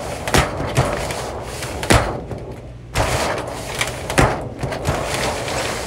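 A travel-trailer shower's retractable roll-up plastic door being worked by hand: a steady rubbing rush as it runs in its track, with several sharp knocks as it springs open. The door will not stay closed and pops open at a touch.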